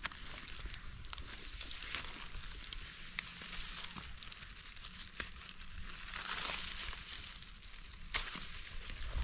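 Dry grass and leaf litter rustling and crackling as gloved hands dig a mushroom out at its base with a small knife, with scattered small clicks.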